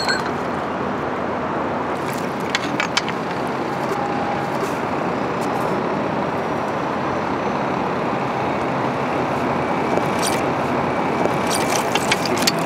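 Steady noise of river water and a tugboat engine, with a few sharp metal clinks and knocks from the log-raft chains and a pike pole being handled, about two to three seconds in and again near the end.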